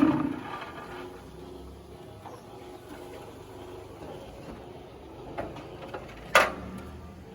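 Concrete block machinery running loudly cuts off at the start, leaving a low hum with a few light clicks and one sharp knock about six seconds in.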